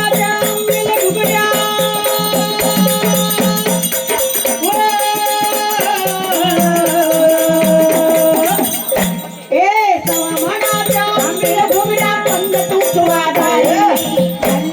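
Marathi devotional folk music: a singing voice holding long notes over a steady jingling rattle-like percussion accompaniment. About two thirds of the way through the sound dips briefly, then a swooping rise and fall of pitch follows.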